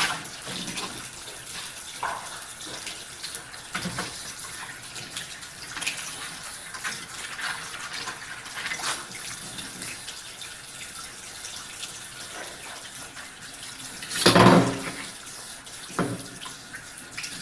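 Tap water running into a kitchen sink during hand dishwashing, with scattered light knocks of dishes. A louder brief burst of noise comes about three-quarters of the way through.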